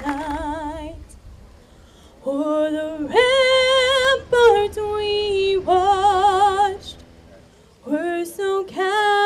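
A woman singing solo into a microphone with no accompaniment: long held notes with vibrato in several phrases, separated by short pauses.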